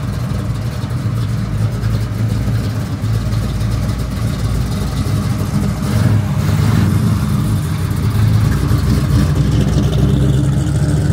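A muscle car's engine running at low revs with a deep, steady exhaust note, growing louder about six seconds in.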